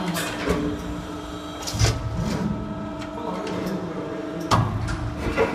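CNC press brake folding sheet metal: a steady machine hum with sharp metallic clanks as the sheet is bent and repositioned, the loudest about two seconds in and again about four and a half seconds in.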